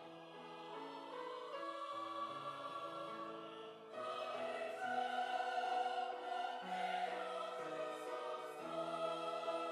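Church choir singing in held chords, swelling louder about four seconds in.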